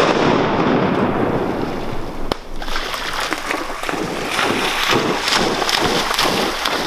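Shotgun fire at ducks: the loud rolling noise of shots just fired, fading over the first two seconds, then one more sharp shotgun report about two seconds in, followed by uneven, choppy noise.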